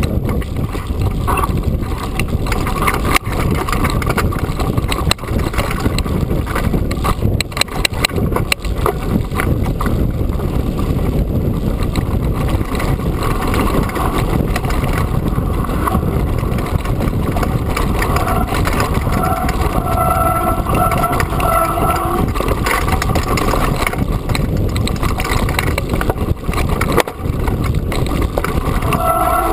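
A Trek Fuel EX9 full-suspension mountain bike ridden fast over a rough grassy track: steady wind rumble on the action-camera microphone with rattles and knocks from the bike over the bumpy ground. A brief steady whine shows up about twenty seconds in and again near the end.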